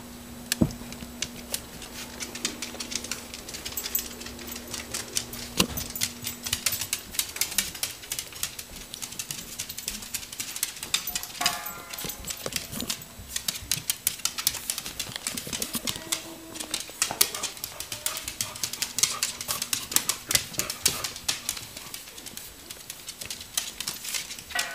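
Beagle moving about close up, with rapid clicks and taps throughout, such as claws and collar tags on a hard floor. A short dog whine comes about halfway through and another right at the end.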